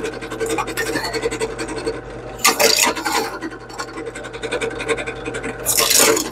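Benchtop drill press running, its bit drilling holes through a small pineapple can of heavy tin. A steady motor hum under continuous scraping, with two louder bursts of harsh metal scraping, about two and a half seconds in and again near the end, as the bit bites through the tin.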